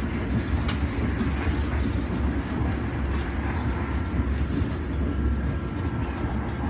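Steady low rumble of a Gautrain electric commuter train running at speed, heard from inside the passenger car, with a faint steady hum above it and a light click less than a second in.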